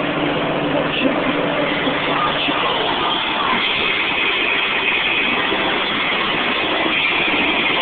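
Nissan SR20DET turbo four-cylinder in a Ford Escort, heard from inside the cabin while driving: steady engine and road noise.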